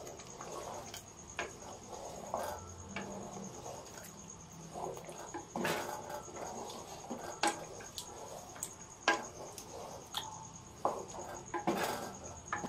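Wooden spoon stirring thick spinach-and-mutton curry in an aluminium pot as it fries, with irregular scrapes and knocks of the spoon against the pot.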